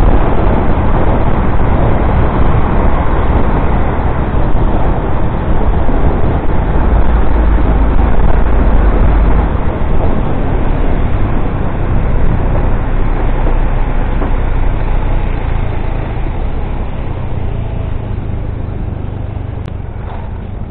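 Steady rush of wind on the microphone and engine and road noise from a motorcycle riding at speed, heavy in the low rumble. It gets gradually quieter over the last several seconds as the ride slows down.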